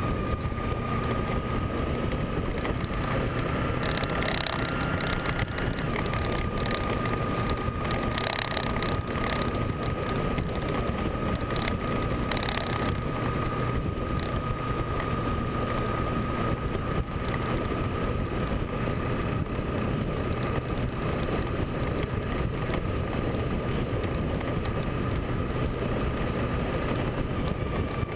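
Motorcycle riding at road speed: steady engine drone under heavy wind rush on the camera's microphone, with a thin high whine held steady over it.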